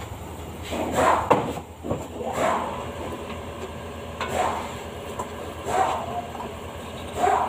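Repair-shop noise as a jack is handled beneath a car on a lift: a steady low hum with short knocks and scrapes about every second or so.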